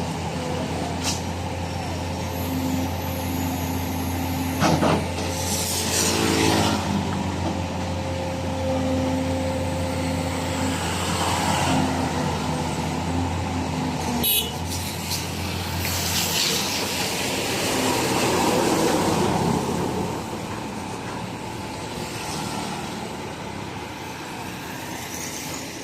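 Heavy diesel machinery running steadily, with several short hisses of released air typical of truck air brakes, about six, fourteen and seventeen seconds in. The low engine hum drops away about sixteen seconds in.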